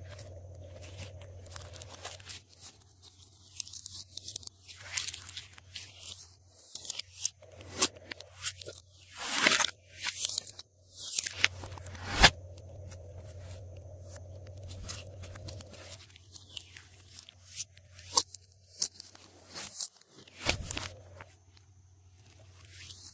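Glossy slime being squished, stretched and folded by hand, giving dense irregular sticky crackles, clicks and pops.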